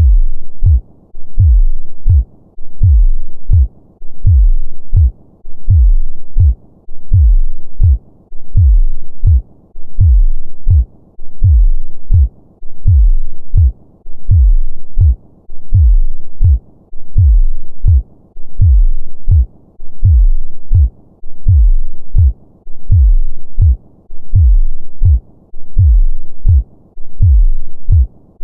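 Human heartbeat of a normal heart: low double thumps (lub-dub) in a steady rhythm of about 70 beats a minute.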